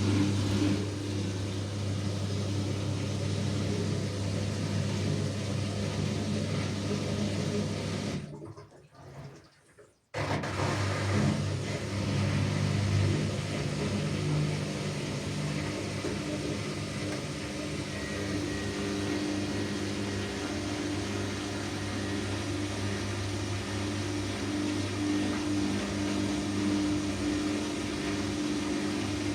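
Washing machine running a cycle: a steady motor hum with the drum turning and some water noise. The sound fades out about eight seconds in, goes nearly silent for a moment, then picks up again and runs steadily.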